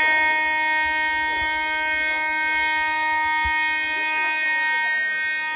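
Building fire alarm sounding a steady, unbroken horn-like tone, rich in overtones, set off by someone pulling a manual pull station.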